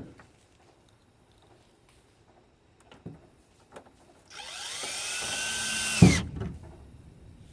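Power drill running for about two seconds, its whine rising in pitch and then holding steady, cut off by a loud knock as it stops. A couple of small clicks come before it.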